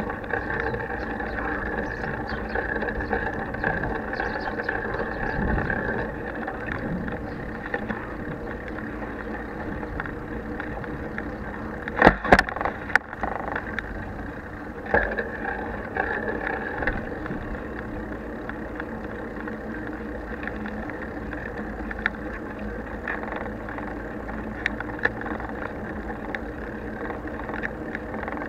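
Steady rolling noise of a bicycle ride, tyres on asphalt and frame vibration, picked up by a bare action camera clamped to the handlebar. A cluster of sharp knocks comes about twelve seconds in, and a smaller one shortly after.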